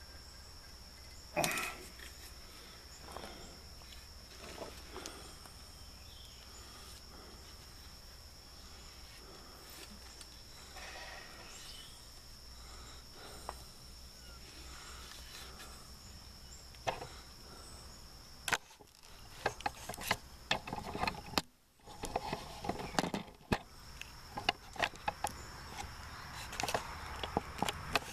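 Small clicks, taps and scrapes of hand tools working at a wood stove insert's gasket channel, scattered at first and coming thick and fast in the last ten seconds, over a faint steady hiss with a thin high whine.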